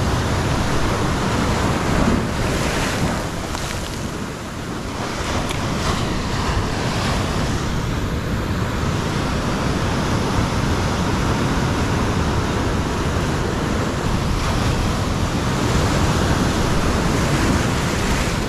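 Surf breaking and washing over a rocky shoreline, a steady rushing wash that swells a little as waves come in. Wind buffets the microphone underneath it.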